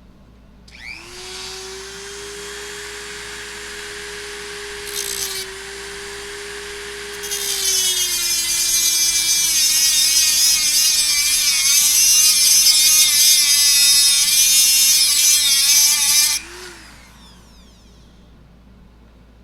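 A handheld power tool starts up and runs freely with a steady whine. From about seven seconds in it bites into a small metal bolt with loud grinding, its pitch dropping and wavering under the load. It stops abruptly at about sixteen seconds.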